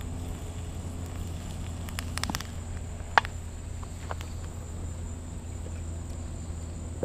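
Outdoor ambience: a steady high-pitched insect drone, likely crickets, over a low rumble, with a few light clicks and one sharp tick about three seconds in.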